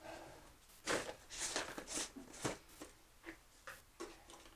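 Small plumbing parts, PEX fittings and crimp rings, being picked up and handled: a run of light clicks, clinks and rustles about every half second.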